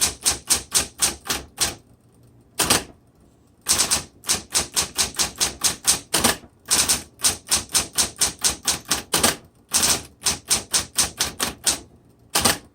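1960s Smith Corona Coronet Automatic 12 electric typewriter being typed on: quick runs of typebar strikes, about five a second, with a short pause about two seconds in and another near the end.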